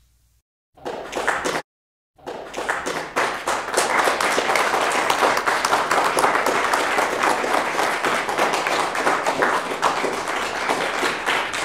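Crowd applause that starts about two seconds in and goes on steadily, preceded by a brief burst of sound just under a second in.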